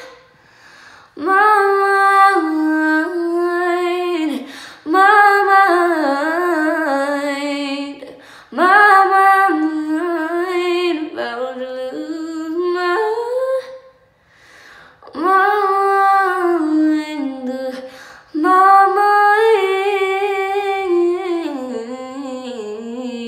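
A woman singing unaccompanied, in five long phrases of sliding, ornamented runs with short breaths between them.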